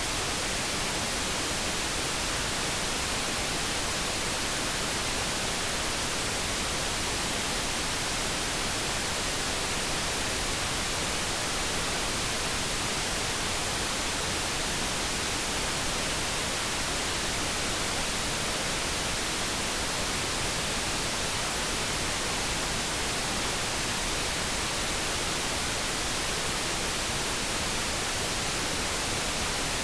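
Steady generated noise: an even, unchanging hiss with no tones or separate events.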